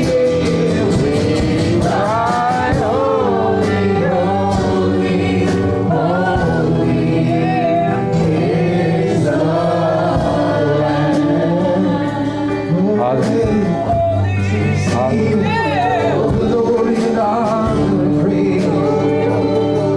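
Live contemporary worship music: several voices singing a slow song over a steady instrumental backing with held low notes.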